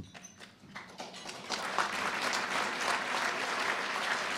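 Audience applauding: a few scattered claps at first, building to full applause about a second and a half in.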